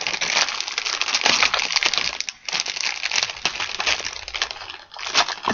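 Clear plastic packaging bag crinkling and crackling as it is handled and pulled open by hand, with two brief pauses.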